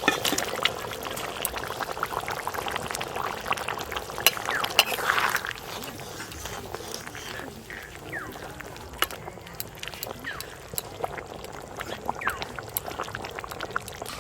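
Fish curry bubbling in the pot as fried snakehead fish pieces go in: liquid splashing and bubbling with sharp clinks, louder for the first five seconds or so, then a quieter simmer.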